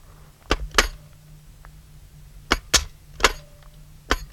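Streetsweeper 12-gauge drum shotgun dry-firing on empty chambers. Each trigger pull gives a double click, first the drum cylinder rotating and then the hammer dropping. There are seven sharp metallic clicks in all, mostly in quick pairs: one pair about half a second in, then more clicks from about two and a half seconds on.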